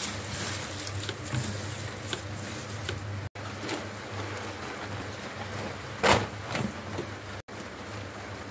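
Handling sounds of a wicker basket and plastic bags, with small rustles and clicks and one louder brief rustle about six seconds in, over a steady low hum. The sound cuts out for an instant twice.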